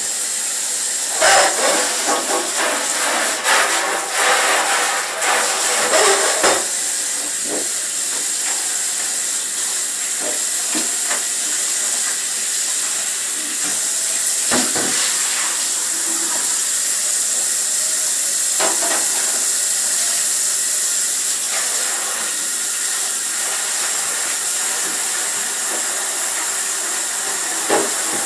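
A steady, loud hiss, with clattering knocks during the first several seconds and a few single knocks later on.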